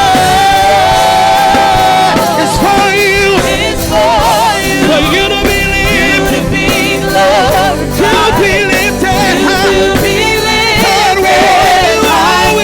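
Live gospel worship music: a band holding sustained chords while voices sing wavering, sliding runs.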